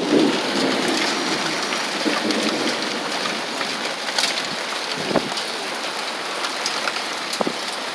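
Hail mixed with rain falling steadily, hailstones pattering on surfaces, with a few louder single hits about four, five and seven seconds in.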